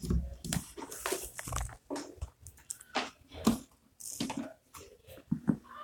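Irregular crackling and rustling right at a phone's microphone, as the phone is handled with hair brushing over it.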